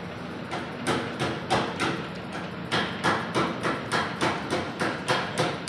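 Rapid, regular clicking or tapping, about three to four sharp clicks a second.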